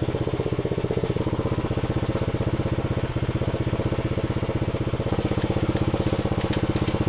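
AGT QK16R mini excavator's engine idling steadily, with a few light high clicks in the last couple of seconds.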